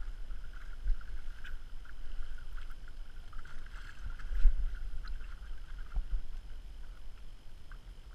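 Wind buffeting the microphone in uneven gusts, with small waves lapping and slapping against a fishing boat's hull in irregular little taps.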